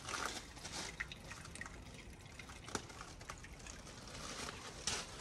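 Water trickling into a rainwater tank through its inlet pipe, with a scatter of separate drips. The pipe feeding it is a downpipe that stays full of water.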